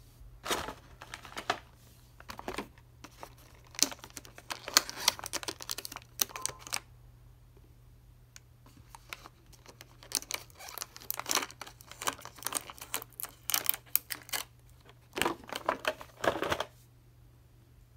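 Clear plastic blister tray of an action-figure package crackling and clicking in irregular bursts as it is handled, with a quieter pause of a few seconds midway.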